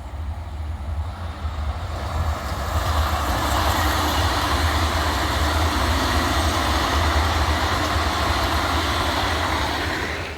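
Vande Bharat Express train set passing slowly, its wheels rolling over the track under a speed restriction; the rolling noise and low rumble build over the first three seconds and then hold steady.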